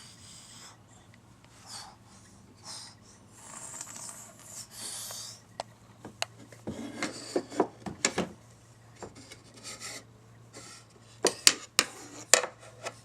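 Rubbing and scraping noises with breathy hisses, then irregular knocks and a quick run of sharp taps and clicks near the end.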